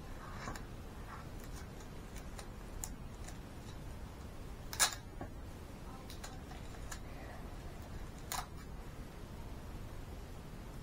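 Light clicks and taps from handling a roll of masking tape and baking paper on a tabletop, scattered through, with a sharper click about five seconds in and another near the end.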